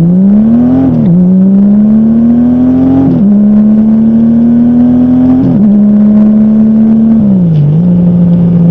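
2005 Honda Goldwing GL1800's flat-six engine pulling the bike up through the gears: the engine note climbs, drops sharply at each of four upshifts about every two seconds, then holds a steady pitch at cruising speed.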